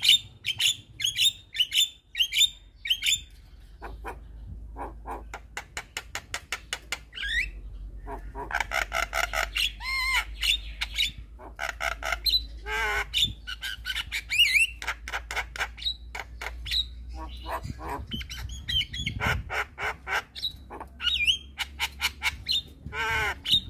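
Javan myna singing: fast runs of rattling clicks and harsh chatter, mixed with squawks and short whistles that slide up and down.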